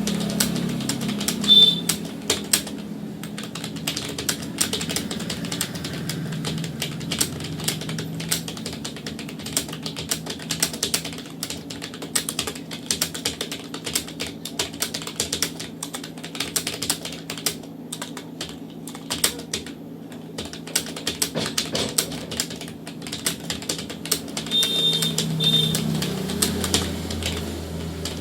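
Fast continuous typing on a computer keyboard, a rapid, uneven stream of keystroke clicks. Short high beeps sound once about a second and a half in and twice near the end.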